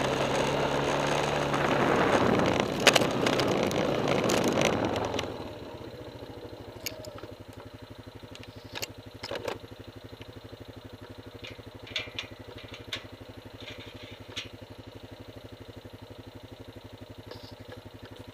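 Honda TRX420 quad's single-cylinder four-stroke engine running under way with loud rushing noise, then dropping sharply to a steady idle about five seconds in as the quad stops. A few sharp clicks and knocks sound over the idle.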